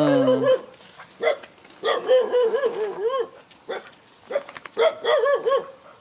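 A dog whining and yipping in a run of short cries that rise and fall in pitch, in two main bouts, the second near the end.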